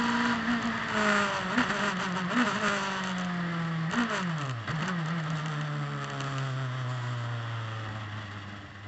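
Turbocharged Saker race car's engine heard from the cockpit as the car brakes hard from speed: three short blips of engine pitch as it is downshifted, then the engine note falls steadily as the car slows, over wind and road noise.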